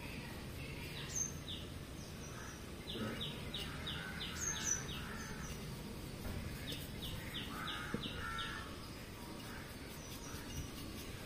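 A bird calling in runs of short, quickly falling chirps, about three a second, in two bursts, over a steady low background noise.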